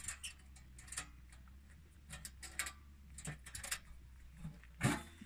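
Faint metallic clicks and taps as hands work the latches of a stainless-steel box mounted in a vehicle's engine bay, with a louder clack near the end as it comes open.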